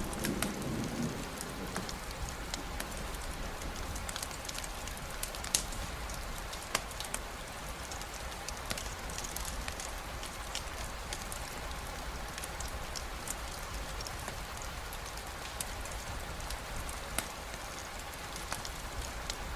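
Steady rain falling, with occasional sharp clicks and pops scattered through it. A low rumble of thunder dies away in the first second or so.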